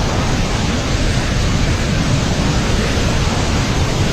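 Steady, loud rush of a flooded river's water.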